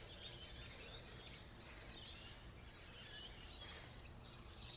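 Quiet outdoor ambience with faint bird chirping.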